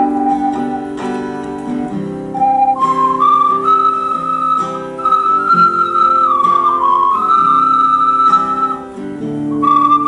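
Ocarina playing a slow melody of long held notes over a plucked accompaniment of repeated chords. The melody pauses briefly near the start and again about nine seconds in, while the chords carry on.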